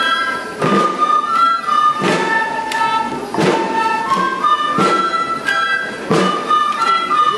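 Andean folk processional music: flutes playing a held, stepping melody over a drum struck about once every second and a half.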